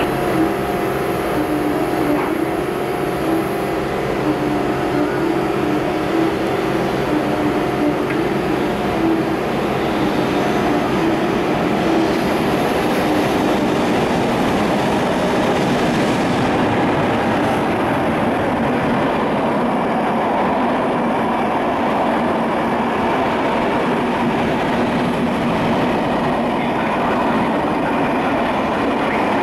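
Electric locomotive hauling a container freight train through a station: a steady tone from the approaching locomotive over a rumble for the first ten seconds or so, then the even rolling noise of the container wagons passing close by.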